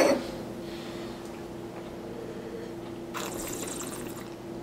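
A quiet room with a steady low hum. About three seconds in comes a second-long breathy rush of air from a person.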